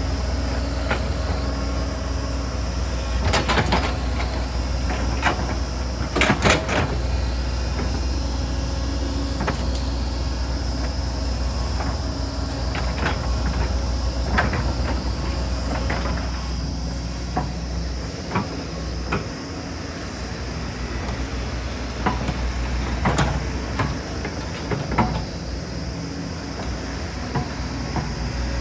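Excavator's diesel engine running steadily while it works, with scattered metallic clanks and knocks from the bucket and rock. The loudest knocks come a few seconds in, and there are more near the end.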